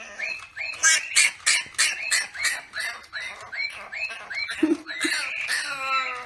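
A small young animal squeaking over and over, about three short high calls a second, with a longer falling call near the end.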